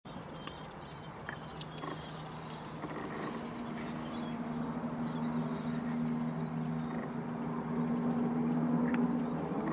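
Outdoor ambience fading in: a steady low hum with a few faint high chirps and clicks over it.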